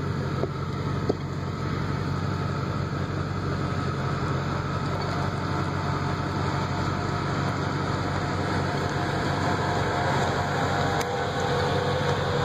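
Land Rover Discovery's engine running steadily at low revs as it crawls over a rocky trail, growing a little louder near the end as it comes close. A couple of light knocks come about a second in.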